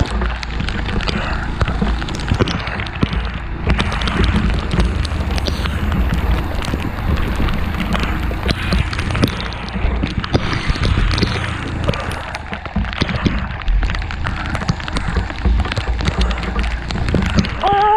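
A motorcycle riding a wet dirt track in rain, heard through a camera mounted on the bike: a steady low rumble of wind on the microphone, with a thick scatter of raindrop ticks.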